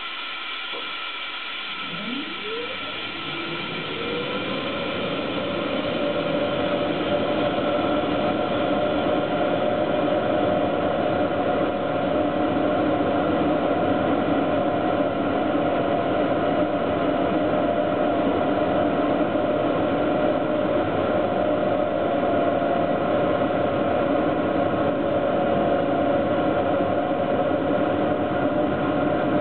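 BDZ class 43 electric locomotive's electrical machinery running up: a whine rising in pitch about two seconds in, then a steady, louder whine and hum over a hiss.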